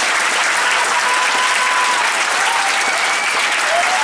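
Theatre audience applauding at the close of a play, dense and steady. A few faint held tones sound over the clapping.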